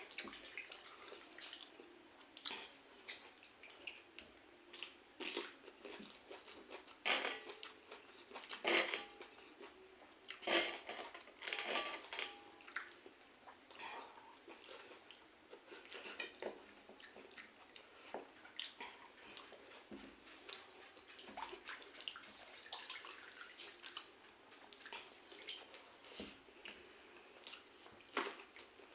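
Close-up eating sounds: fingers squishing and mixing pakhala, rice soaked in water, with chewing and small wet clicks and smacks at an irregular pace. There are a few louder wet bursts about a quarter of the way through.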